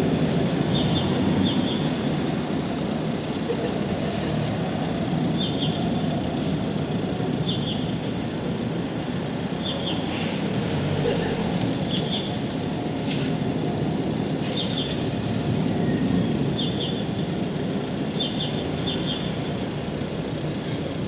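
A small bird calling over and over with short high chirps, in quick pairs and triples every second or two, over a steady low rushing background noise.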